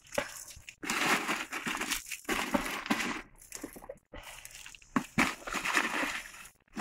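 Dry, papery skins of shallots rustling as a hand rummages through a pile of them, picking out shallots, in several bursts with short pauses.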